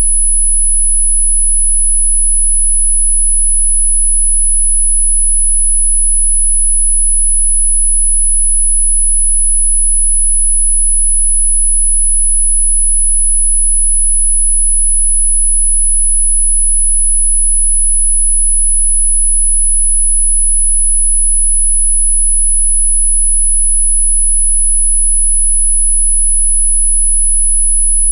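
Electronically generated pure sine tone, very high-pitched and held perfectly steady without any change, with a fainter low hum beneath it: a so-called healing-frequency tone.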